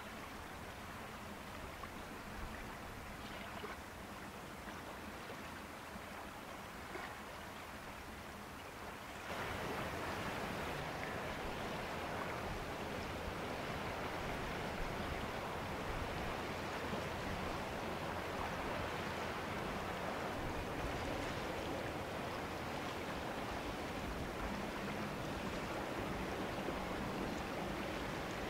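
Steady rushing outdoor noise of wind and river water, with no distinct engine note. It jumps louder and brighter about nine seconds in.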